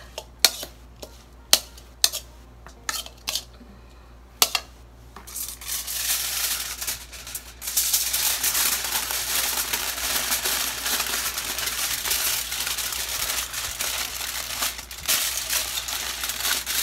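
A metal spoon clicking against a bowl a few times, then aluminium foil crinkling continuously as it is pressed and folded into a packet around the food.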